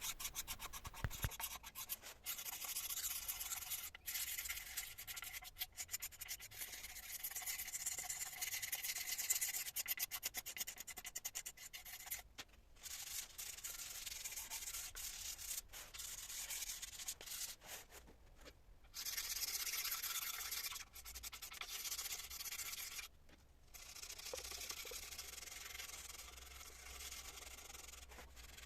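Sandpaper rubbing on a wooden chair, sanding off old varnish and dried wood filler in continuous strokes, broken by a few short pauses.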